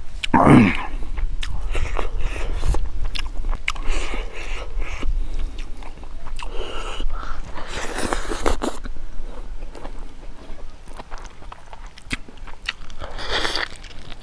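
Close-up wet chewing and biting of cooked pig leg meat and rice eaten by hand, with repeated mouth smacks and clicks. About half a second in, a short vocal sound drops quickly in pitch.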